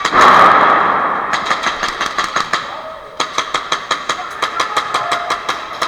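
A loud hissing burst that fades over about a second, then rapid strings of airsoft gunfire, about seven sharp shots a second, in two long volleys with a short break between them.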